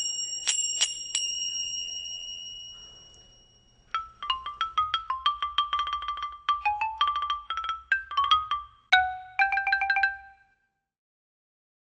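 Small brass finger cymbals struck together three times, their high bright ring fading out over a few seconds. Then a wooden-barred mallet keyboard instrument plays a quick run of short notes for about six seconds, ending on fast repeated notes before it stops.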